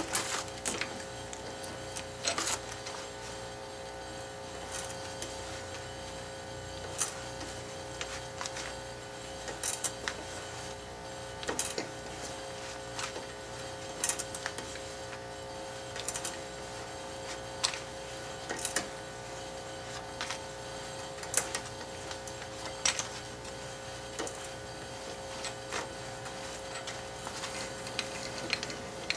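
A tap being turned by hand through a 1/2"-13 thread in hard 4140 steel plate, a fraction of a turn at a time: irregular sharp ticks and clicks as the tap cuts and the chips break, about every second or two, over a steady hum.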